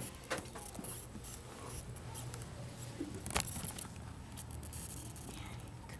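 Rustling with scattered clicks and knocks from camera handling and people moving about, one sharper knock about three and a half seconds in, over a low steady hum.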